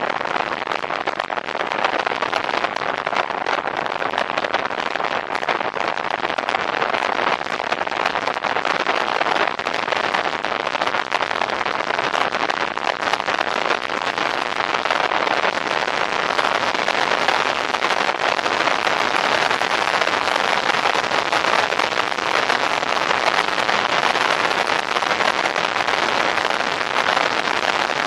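Wind noise on the onboard microphone of a Can-Am Ryker riding at road speed: a steady, crackling rush that holds even throughout.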